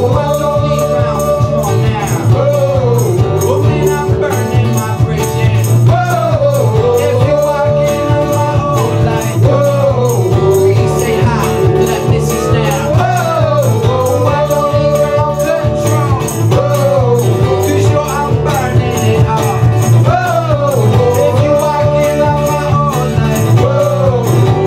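A live acoustic pop band playing: acoustic guitar and bass guitar under a steady rattling shaker-like percussion beat, with a male lead vocal singing a melody in held, sliding phrases.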